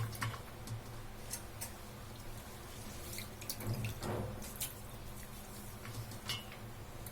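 Water dripping and trickling as a handful of soaked, grated potato is squeezed out by hand, in scattered drops with a longer splash of run-off about halfway through.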